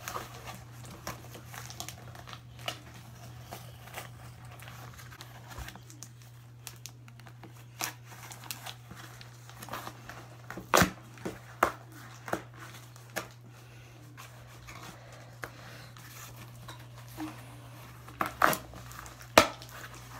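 Packing tape being picked at and torn off a cardboard package by hand, with crinkling and scattered sharp snaps and knocks, bunched about halfway through and again near the end. A steady low hum lies underneath.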